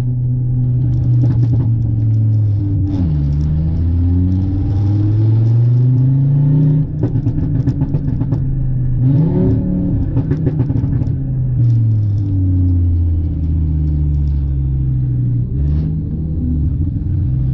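Porsche 911 Turbo S twin-turbo flat-six running at moderate revs while driven at low speed. Its note climbs and drops several times as the car speeds up and eases off.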